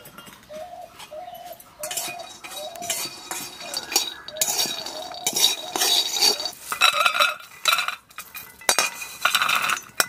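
Peanuts dry-roasting in a metal wok (kadai), rattling and clinking as a metal spatula scrapes and stirs them, busier in the second half, then scraped out into a steel bowl near the end. In the first few seconds an animal calls in short repeated notes.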